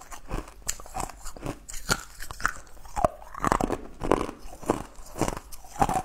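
Close-up chewing and biting of sugar-crusted blue jelly candy cubes: a run of crisp crunches, a couple each second.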